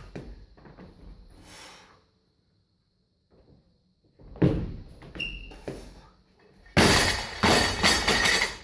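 Loaded barbell with bumper plates knocking and rattling as it is lowered to the shoulders and jerked again, then dropped from overhead onto the floor about seven seconds in. The drop is the loudest sound: a crash followed by about a second and a half of bouncing and clattering.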